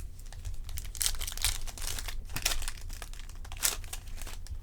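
Wrapper of a baseball card pack crinkling and tearing in the hands, in several short rustling bursts.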